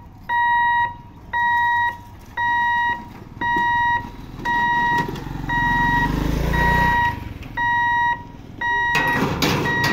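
Level crossing warning hooter beeping, one even beep about every second, signalling that the lifting barriers are coming down. A motorcycle engine rumbles past about halfway through, and a burst of rough noise comes near the end.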